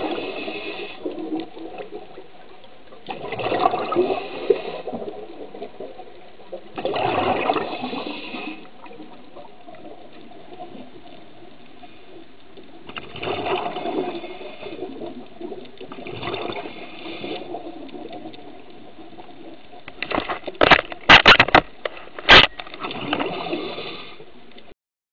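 Underwater breathing through a scuba regulator: six gurgling bursts of exhaled bubbles, three to six seconds apart, over a faint steady hum. Several sharp knocks come about 21 to 22 seconds in, and the sound cuts off abruptly just before the end.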